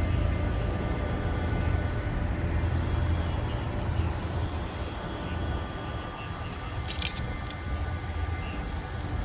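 Steady low engine rumble with faint steady whines, and a short sharp click about seven seconds in.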